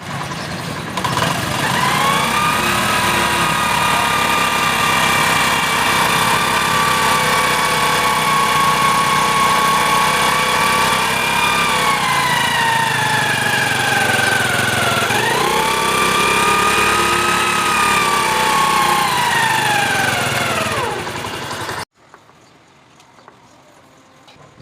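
Vehicle engine running with a loud whine from the clutch box. The whine climbs in pitch, holds steady, falls, climbs again and falls as the revs change, then stops abruptly near the end. The whine is the clutch box noise problem the owner is showing.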